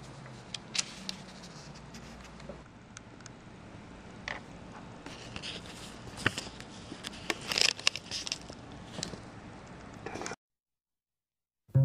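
Scattered rustling, scraping and sharp clicks of hands handling objects close to the microphone, busiest in the second half, over a faint low hum at the start. The sound cuts off abruptly into silence near the end.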